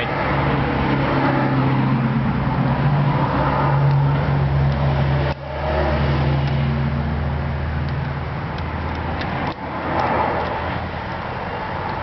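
A steady engine or motor hum with a low drone. Its pitch drops after a short break about five seconds in.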